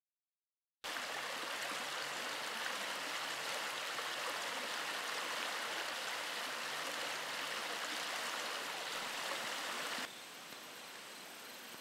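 Steady rush of flowing stream water, starting just under a second in and turning to a softer, quieter rush about ten seconds in.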